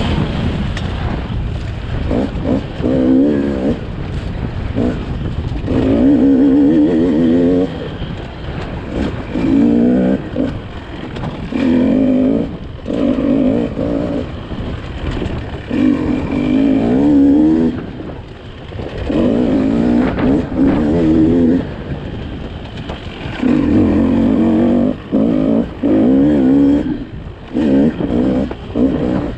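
Beta 200 RR two-stroke dirt bike engine under way, rising in short throttle bursts of a second or two and dropping back between them.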